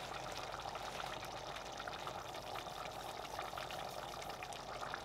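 Pot of egusi soup simmering on the stove: a steady soft bubbling with a fine crackle.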